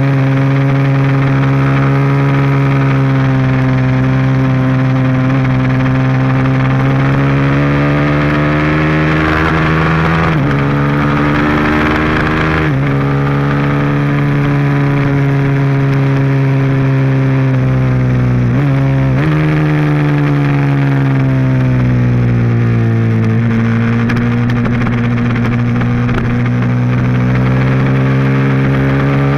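Ducati 1098S's L-twin engine at racing speed on track, its pitch climbing and falling with throttle and breaking sharply at gear changes about 10, 13 and 19 seconds in, over steady wind rush.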